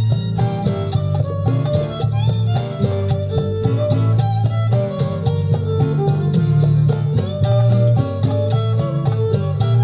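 Instrumental passage of a Spanish-language song with no vocals: violin and guitar play the melody over a strong, steady bass line.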